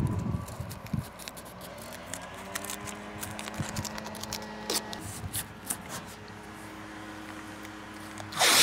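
Blue painter's tape being torn from the roll and pressed onto a shipping container's corrugated metal side: a run of small crackles and rips, with a louder rip near the end.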